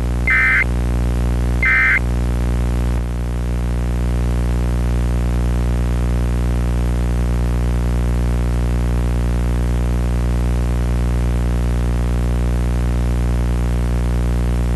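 Two short, shrill EAS end-of-message digital data bursts in the first two seconds, over a loud steady electrical buzz full of overtones. The buzz then carries on alone: the 'killer buzzer' fault of a Sage EAS ENDEC.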